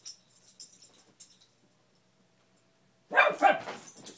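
Beagle barking: a loud quick double bark about three seconds in, after a second or so of faint clicking.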